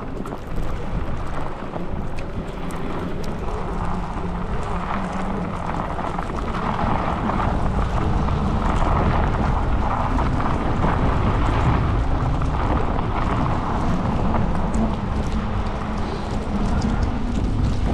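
Steady wind rumble and rush on the microphone of a moving bicycle ride through snow, growing a little louder about seven seconds in.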